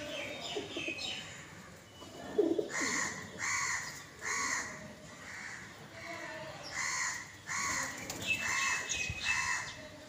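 Birds calling around feeding pigeons: a bird chirps over and over, a call about every three-quarters of a second, while a pigeon gives a low coo a couple of seconds in.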